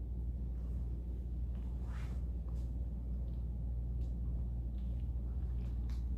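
Steady low hum of an empty room, with a few faint clicks.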